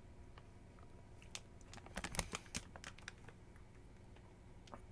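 Faint crinkling of a plastic snack wrapper being handled and pulled open, with a quick cluster of crackles about two seconds in.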